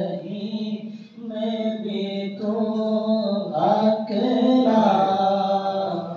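Male chanting of a devotional litany, the voice held in long drawn-out phrases with a short break about a second in.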